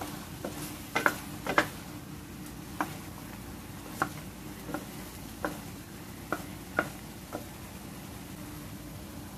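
A wooden spatula knocking against a stainless steel pan while stirring chicken gizzards: about ten sharp taps at uneven intervals, the loudest a cluster about a second in, over a steady low hum.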